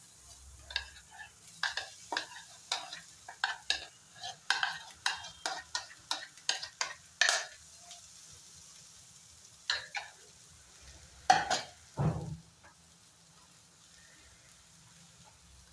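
Metal spoon scraping and knocking against a non-stick frying pan while breaking up and stirring boiled potato into fried onion and spices, over a faint sizzle. A quick, irregular run of strokes gives way to a pause, then a few louder knocks, the loudest about eleven seconds in.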